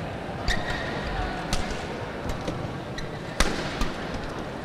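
Badminton rally: several sharp pops of rackets striking the shuttlecock, the strongest about three and a half seconds in. Shoe soles squeak briefly on the court after the first hit, over a steady hall background.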